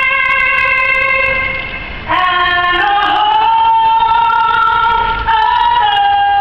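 A woman singing the national anthem solo and unaccompanied through a ballpark's loudspeakers. She holds long notes with vibrato, takes a short breath about two seconds in, then goes into the next phrase.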